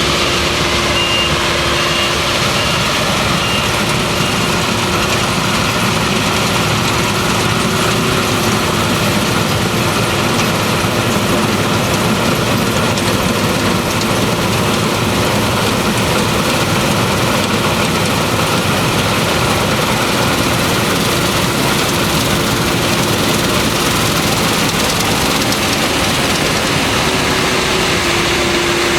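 Claas Lexion 480 combine harvester running steadily while harvesting wheat, engine and threshing machinery together with a constant hum.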